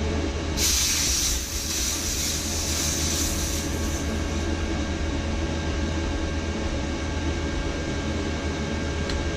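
High-pressure air hissing out of the bleed valve on the Benjamin Traveler 4500 PSI compressor's fill hose for about three seconds, starting about half a second in, as the line is depressurised after the fill. Underneath, the compressor's cooling fan hums steadily.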